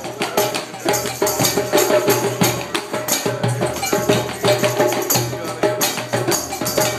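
Tap shoes striking the floor in quick, dense runs of clicks over live band music.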